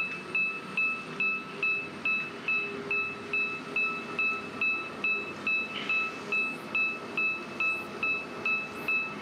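An electronic warning beeper sounding the same high tone over and over, about two and a half beeps a second, over a steady low engine hum.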